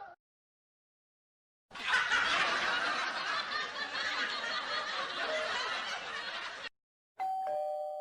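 Laughter sound effect: a group of people laughing for about five seconds, cut off abruptly. Near the end a short electronic tone starts and steps down to a lower pitch.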